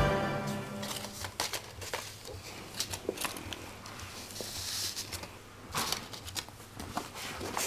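A sheet of origami paper being folded and creased by hand: irregular rustling and crinkling, with small sharp crackles as the folds are pressed flat.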